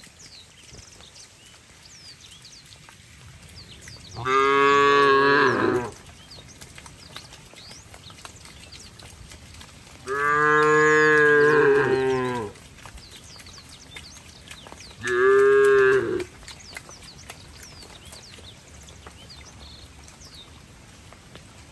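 Cattle mooing: three long moos, about four, ten and fifteen seconds in, the middle one the longest at about two seconds.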